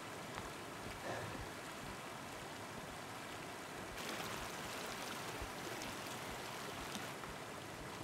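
Shallow stream babbling steadily over stones, a little louder about halfway through.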